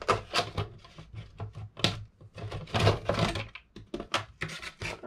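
Painted polycarbonate body shell of a 1/8-scale electric RC buggy being handled and lifted off its chassis: a run of irregular plastic clicks, taps and rustling, busiest about three seconds in.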